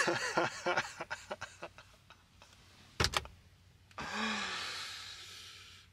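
A man laughing breathily, the laughter trailing off over the first two seconds. A short double knock about three seconds in, then a long breathy exhale that starts with a brief voiced sound and fades.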